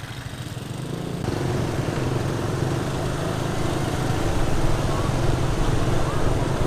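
Small motorbike engines running steadily as the bikes ride along, getting louder about a second in.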